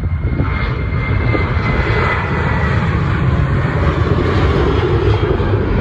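Airliner's engines, a loud steady rumble with a faint high whine that sinks slightly in pitch in the first few seconds.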